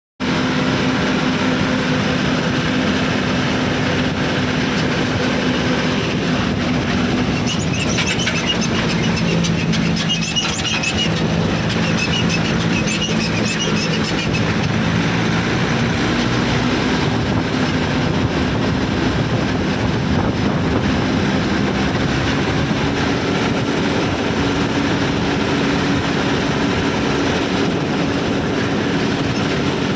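Diesel engine of a heavy work vehicle running steadily, with a second, lower engine note joining about eight seconds in and fading out around sixteen seconds in. High-pitched chirping sounds over it between about eight and fourteen seconds in.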